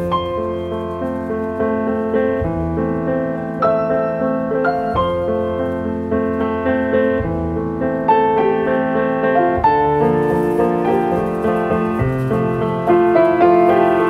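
Background piano music: a gentle melody of held notes over sustained chords.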